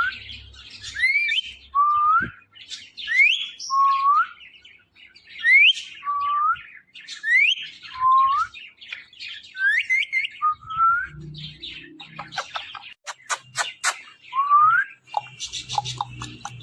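Ringneck parrot giving a string of short rising whistled calls, about one a second, with a run of sharp clicks about three-quarters of the way through.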